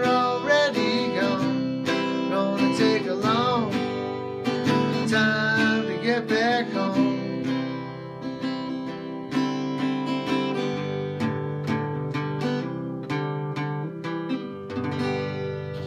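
Strummed acoustic guitar playing the closing bars of a country-style song, with wordless singing wavering over the guitar in the first half. The guitar carries on alone, a little softer, for the rest.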